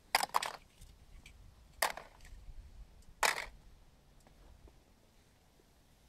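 Crushed aluminum cans dropped into a hot crucible, landing in three short clatters: near the start, about two seconds in, and a little after three seconds.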